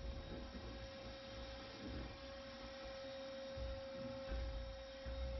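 Wet/dry shop vacuum running steadily with a high, even whine while its hose cleans the boat floor, with low rumbling that comes and goes as the hose is worked.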